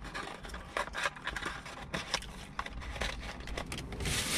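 A small cardboard fast-food box and its paper being handled and closed: irregular crinkling and light clicks. A louder, steady rustle begins near the end.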